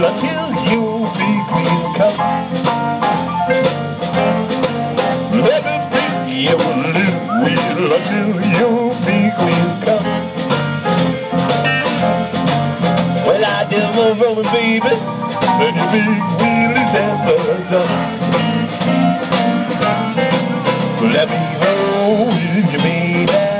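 Live blues band playing: electric guitars, keyboard and drum kit, with bending guitar notes and a steady drum beat, as heard from the audience in front of an outdoor stage.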